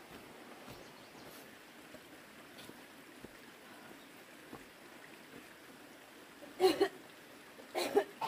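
A digging tool cutting into soil twice, about a second apart: two short, loud scrapes over a faint steady background.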